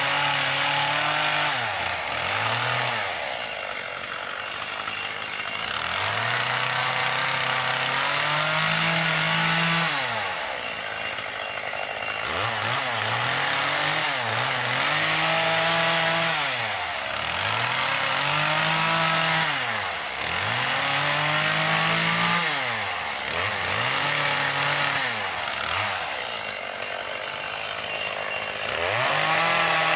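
Big chainsaw cutting into a wood block to rough out a carving, the engine revving up and falling back over and over, a cut every couple of seconds, with a few slower stretches at lower level.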